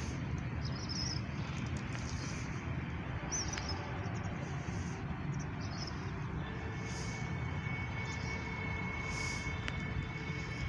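Outdoor ambience: a steady low rumble with scattered short high bird-like chirps, and a faint steady high whine that comes in about six seconds in.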